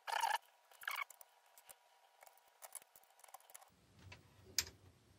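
Faint handling noise from multimeter probes being lifted and set back on a circuit board: a short rustle at the start, a few soft ticks, and one sharper click about four and a half seconds in.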